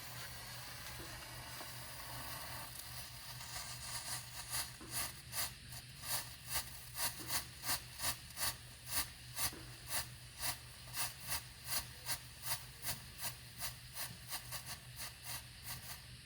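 Strobe pot firework going off: a hiss, then from about three seconds in a steady train of short pulsing bursts, about two or three a second, as its strobe stars flash one after another.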